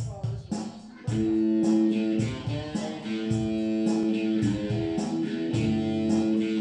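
A band playing: a drum kit keeps a steady beat, and about a second in strummed guitar chords come in and ring over it.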